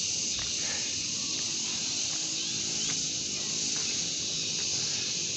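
A steady, high-pitched insect chorus from the surrounding vegetation, unchanging throughout, with a few faint clicks under it.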